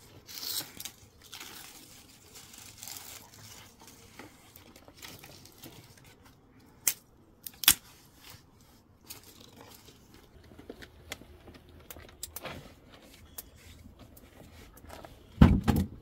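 Dry sticks and twigs being handled, rustled and laid on stony ground to build a campfire, with scattered small clicks and two sharp cracks about seven to eight seconds in. A brief low rumble near the end.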